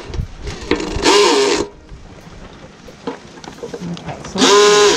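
Cordless drill/driver running in two short bursts, about a second in and again near the end, driving the bolt that fastens a grill lid handle.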